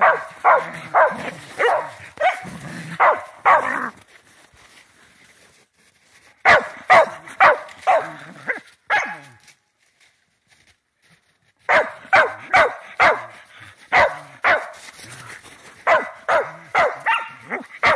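Shetland sheepdog barking in quick runs of short barks, about two a second, breaking off twice for a couple of seconds.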